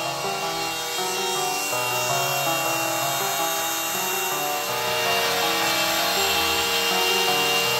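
Background music with a melodic keyboard line, over the steady high hiss and whine of a CNC router's trim-router spindle cutting MDF.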